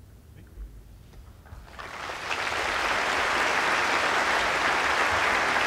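Audience applause that starts about a second and a half in, builds quickly, and then holds steady.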